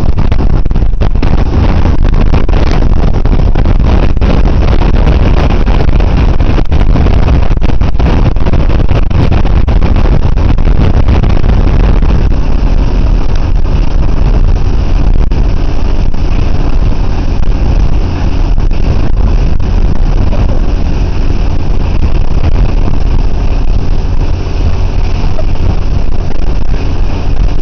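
Motorboat running at speed while towing, its engine noise mixed with the rush of the churning wake; loud and steady throughout.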